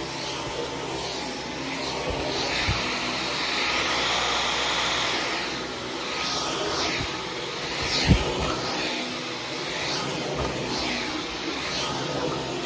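Dyson V15 Detect cordless stick vacuum running on medium, pushed back and forth over carpet, its hiss surging and easing with the strokes. Its high motor whine steps up in pitch about two seconds in, and there is a single knock about eight seconds in.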